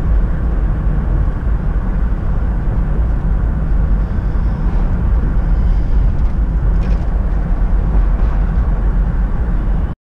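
Road and engine noise heard inside a moving truck's cab: a steady low rumble that cuts off suddenly near the end.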